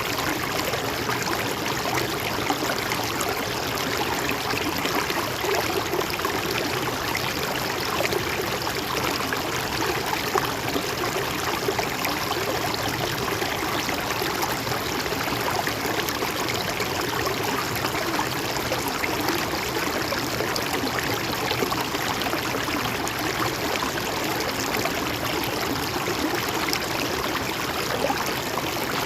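A shallow stream or river flowing and gurgling steadily over rocks.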